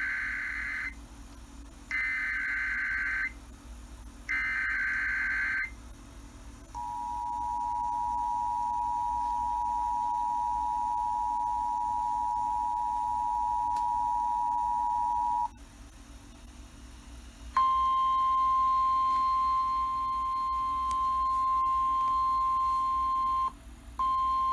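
Emergency Alert System broadcast tones: three data bursts of the SAME header, each about a second long with a second's gap between them, then the steady two-tone attention signal held for about nine seconds. After a pause of about two seconds, a single steady alert tone begins, briefly drops out near the end, and carries on.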